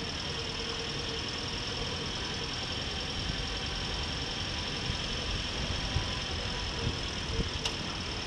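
Motorcycle riding at a steady pace on a rough gravel road: the engine runs evenly under a steady rush of road and tyre noise, with a few low thumps from bumps in the second half.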